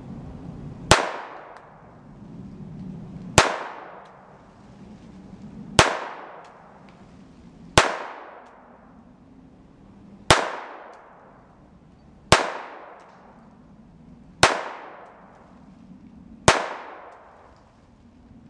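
SIG Sauer Mosquito .22 LR semi-automatic pistol firing CCI Mini-Mag rounds in slow aimed fire. Eight single sharp shots come about two to two and a half seconds apart, each with a short echo trailing off.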